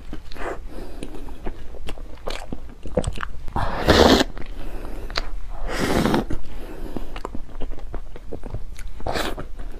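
Close-miked eating of a soft, cream-filled chilled bread bun: bites, wet chewing and mouth clicks, with two louder, longer stretches about four and six seconds in.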